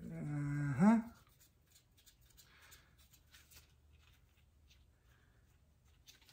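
A man's brief wordless hum in the first second, pitch rising at its end, then faint scattered light clicks and taps of steel bolts being handled and set into the oil pump's bolt holes.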